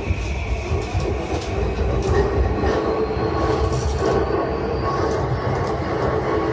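E235-series electric train running on the rails: a steady low rumble of wheels on track with a few faint clicks, and a held tonal whine over it.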